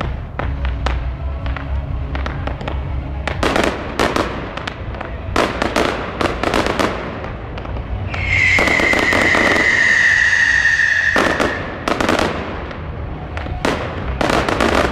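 Aerial fireworks display: a rapid run of shell bursts and crackling bangs. A little past the middle, a high whistle falls slightly in pitch and holds for about three seconds before cutting off.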